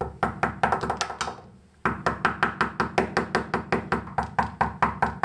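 Stone striking stone: a hand-held stone knocks rapidly and evenly on another stone, about six knocks a second, with a short pause a little under two seconds in.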